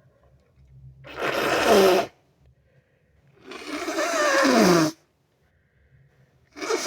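Three harsh nose blows, the air rushing hard through the nose, each carrying a whistling tone that drops in pitch; the third is cut off at the end.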